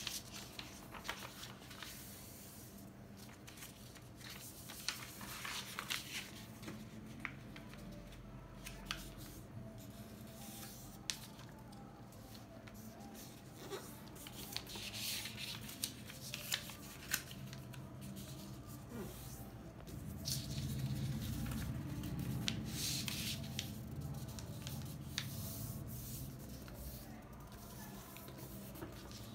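A sheet of printed paper being handled and folded on a wooden tabletop: uneven rustling and sliding, with occasional sharp taps and creases.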